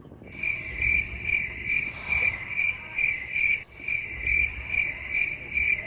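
Stock cricket-chirping sound effect, the comedy cue for an awkward silence: a steady high chirp pulsing about two and a half times a second, with a short break about two thirds of the way through.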